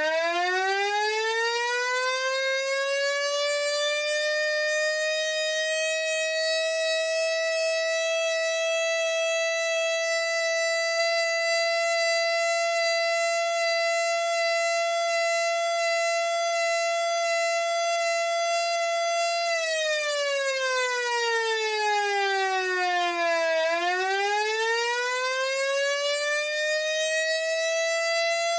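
A vintage 6-volt mechanical siren wails at a steady pitch after winding up. About twenty seconds in, its pitch slides down for about four seconds as it spools down, then climbs back up as it is powered again.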